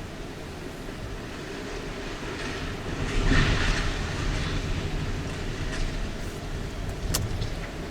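Typhoon-flooded river rushing with a steady, heavy rumble that swells about three seconds in and then eases, with a single sharp crack near the end.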